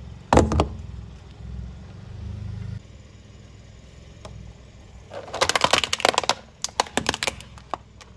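A car tyre crushing things: a short loud crunch just after the start as it flattens a row of cups, then a few seconds later a rapid run of plastic cracks and snaps, tapering into single cracks, as it crushes a plastic toy sports car.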